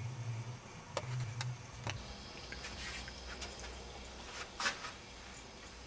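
A few small, sharp clicks and taps over a low steady hum, the loudest click about four and a half seconds in; the hum shifts lower about two seconds in.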